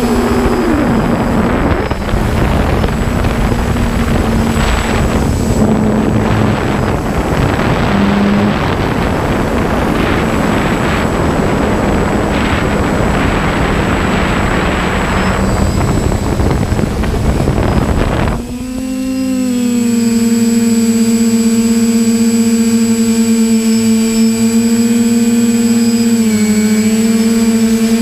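Multirotor drone's motors and propellers whining steadily, heard from the camera on the drone itself. For the first two-thirds a loud wind rush on the microphone covers it; about 18 seconds in the rush drops away, leaving a clean whine that steps a little in pitch near the end.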